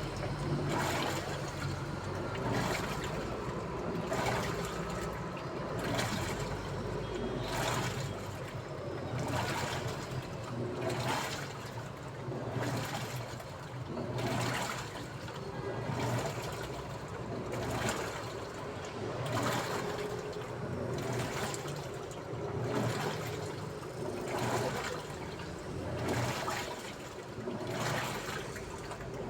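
Daewoo washing machine running a wash, water sloshing in even strokes a little more often than once a second over a steady low motor hum.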